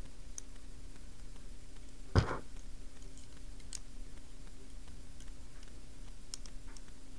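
Small plastic toy-kit pieces clicking faintly as they are handled and fitted together, with one louder knock about two seconds in.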